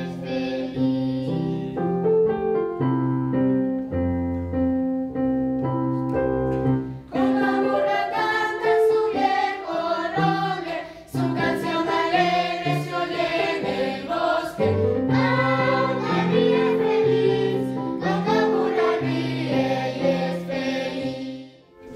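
Choir singing with instrumental accompaniment. The first several seconds are steady held notes, and the voices come in strongly about seven seconds in.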